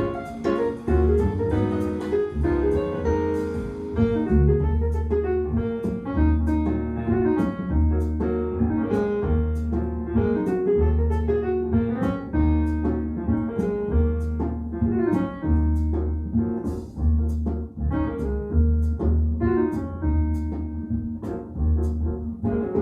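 Jazz recording played back through B&W 802D3 loudspeakers: piano over steady low double-bass notes, with light cymbal taps keeping time.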